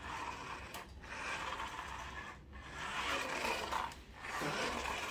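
Electric motor and plastic gears of a toy RC car whirring in bursts of about a second and a half with short pauses between, as the car is driven in spurts.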